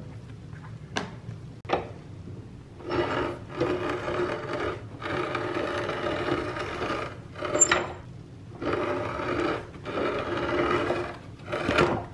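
Motorised rotary cutting machine with knurled wheels cutting a shape out of stiff board, running in several stop-start spurts of up to about two seconds as the board is guided along a drawn line. Two sharp clicks come shortly before the cutting starts, and another click falls in the middle of it.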